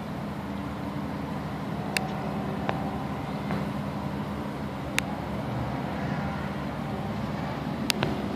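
A steady low engine drone, even throughout, with a few sharp clicks at intervals.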